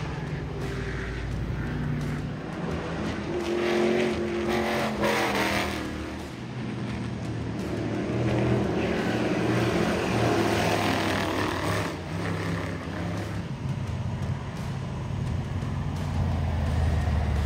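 Race car engines running on a short oval track, their pitch rising and falling as cars accelerate and pass.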